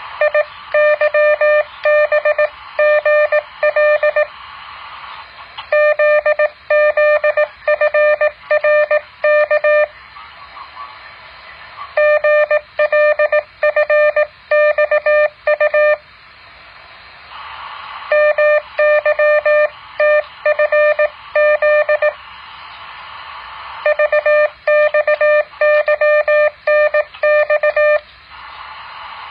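Morse code practice tone, keyed in quick dots and dashes as five runs of characters of about four seconds each, with short pauses between them that are filled by a hiss.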